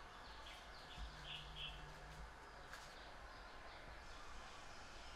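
Faint background ambience with small birds chirping a few times, brief high chirps, two of them a little clearer just over a second in.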